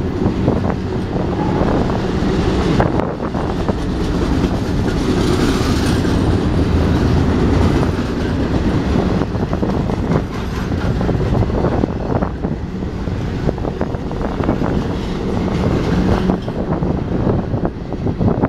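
Double-stack container well cars of a BNSF freight train rolling past: a steady rumble of steel wheels on rail, with clicking from the wheels that becomes more distinct near the end.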